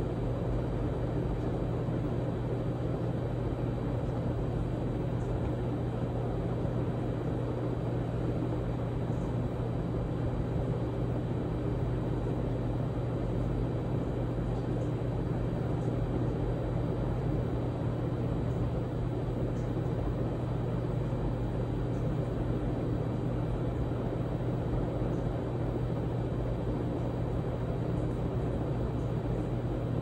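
A 52-inch Hunter Original ceiling fan with a PSC oil-bath motor, running with four blades fitted: a steady rush of air with a constant low hum.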